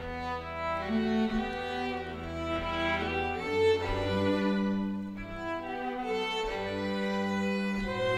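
Bowed string ensemble, violins over a double bass, playing a traditional Scandinavian fiddle tune: a moving melody above long held bass notes.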